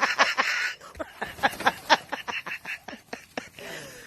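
Nylon fabric of a pop-up toilet tent rustling as it is handled and unfolded: a rush of rustling at first, then a quick run of sharp ticks and snaps.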